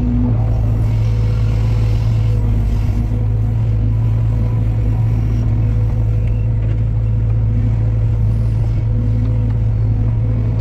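Diesel engine of a heavy construction machine running steadily at constant speed, a low even hum with no change in pitch.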